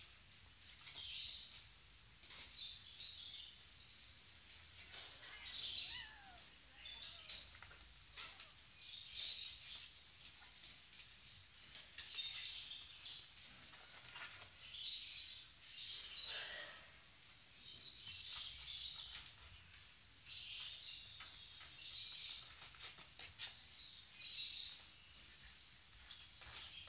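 Small birds chirping in irregular high-pitched bursts every second or two.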